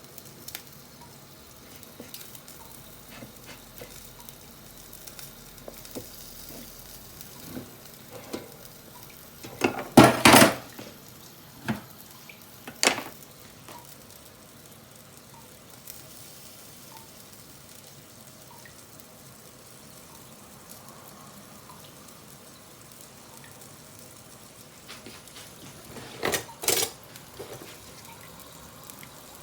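Yakitori skewers sizzling steadily on an Iwatani tabletop gas grill, with small crackling ticks. A few loud, short clattering sounds come about ten to thirteen seconds in and again near the end.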